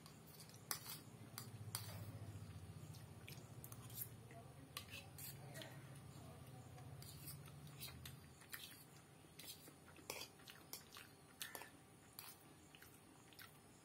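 Quiet eating sounds: a metal fork clicking and scraping on a plate of chow mein, with soft chewing between, as short scattered clicks. A low hum in the background stops about eight seconds in.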